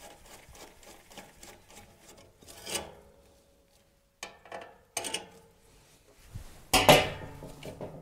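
A screwdriver working the worm-drive hose clip on a flexible stainless diesel-heater exhaust pipe: a run of small metallic clicks and scrapes, then a few louder knocks, the loudest about seven seconds in, as the pipe is worked loose by hand.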